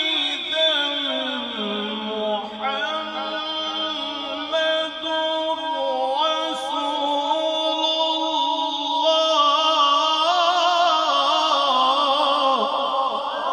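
A man's voice reciting the Quran in melodic qirat style, drawing out long held notes with quavering ornaments. The pitch sinks over the first two seconds, then holds and climbs into faster wavering turns in the second half.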